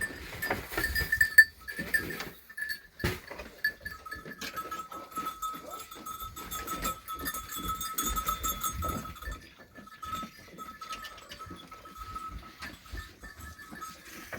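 Sheep bleating, with knocking and rustling from the animals moving about. A faint steady high tone runs under most of it.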